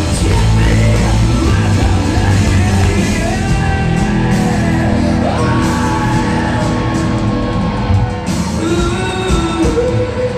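Live hard rock band playing loud through a club PA: distorted electric guitars, bass and drums, with a singer shouting and singing over them. About halfway through, a high note slides up and is held for a few seconds.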